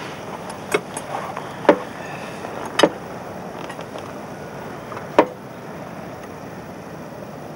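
A hand tool clicking against a fitting on the casing of a German magnetic mine as the fitting is worked loose: a few sharp, separate clicks at uneven intervals, the last about five seconds in, over a steady background hiss.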